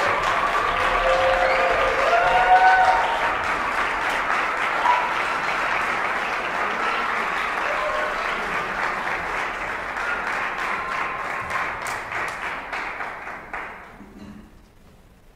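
Audience applauding in a concert hall, with a few short cheers in the first three seconds; the clapping dies away about fourteen seconds in.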